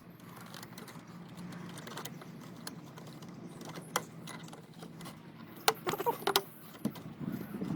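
Scattered metallic clicks and clinks of hand tools and parts being handled, bunched together about six seconds in, over a faint steady low hum.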